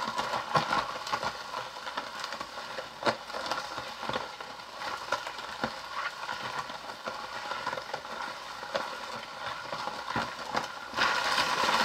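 Hand-cranked plastic toy ice cream maker being turned to churn and freeze the ice cream mix, giving a continuous run of irregular plastic clicks and rattles that gets a little louder near the end.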